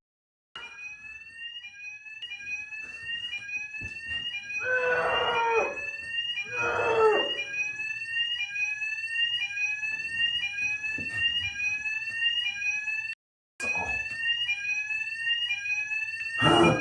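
Electronic fire alarm sounding nonstop, a fast, even repetition of short rising tones. A man gives two loud cries about five and seven seconds in, and the alarm drops out for a moment near the end.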